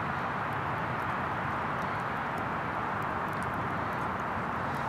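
Small twig campfire burning under a hanging metal cup: a steady hiss with a few faint crackles.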